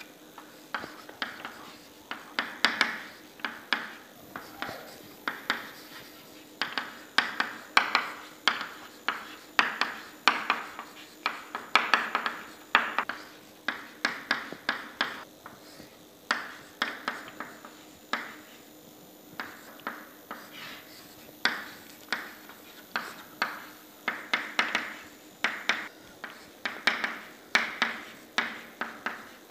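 Chalk tapping and scratching on a chalkboard as equations are written: quick runs of sharp clicks, several a second, broken by a few short pauses.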